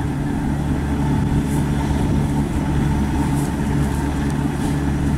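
Rice combine harvester's engine running steadily as the machine cuts through the paddy.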